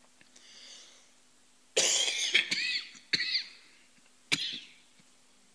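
A man coughing four times into his hand in quick succession, the first cough the loudest, after a faint breath in.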